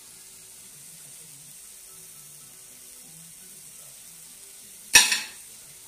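Quiet kitchen background with a faint low hum, broken about five seconds in by one sharp clack: the metal ring mould, just lifted off the shaped mashed potato, being set down on a hard surface.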